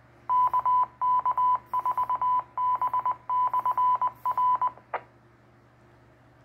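A 2-metre amateur radio transceiver's speaker sounding a Morse code identifier from the repeater: a single steady beep tone keyed on and off in dots and dashes for about four and a half seconds, ending in a short squelch click.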